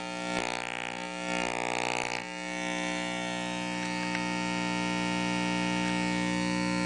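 Speaker of a breadboarded single-ended 6BQ5 (EL84) and 12AX7 tube amplifier giving out a distorted mains hum and buzz picked up by its open input wire. The buzz swells twice in the first two seconds as a hand moves near the wire, then holds steady. The builder puts the distortion down to wonky biasing.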